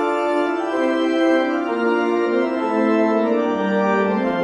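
Organ music: a melody of held notes that steps downward in pitch over the course of the passage.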